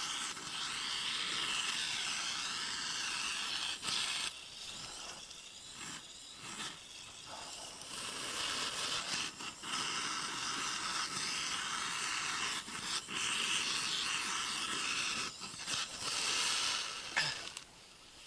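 Portable gas burner on a screw-on gas canister, hissing steadily as its flame singes the last down off a plucked drake. The hiss grows weaker for a few seconds after about four seconds, comes back, and stops shortly before the end.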